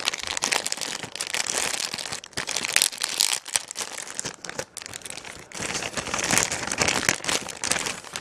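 Clear plastic wrapping crinkling and crackling as hands pull it off a compact digital camera, full of small crackles.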